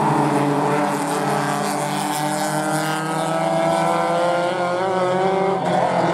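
A pack of BMW E36 rallycross cars racing, several engine notes overlapping and held fairly steady.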